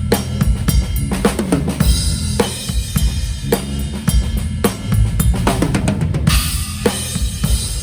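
A Yamaha Maple Custom Absolute drum kit with Zildjian cymbals played in a steady groove: bass drum, snare and cymbals, with a low, pitched line moving underneath. Cymbals wash over the last second or so.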